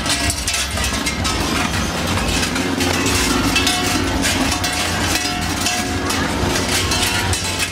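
Krampus bells (large cowbells worn by the Perchten runners) clanging continuously and densely, over a steady low rumble.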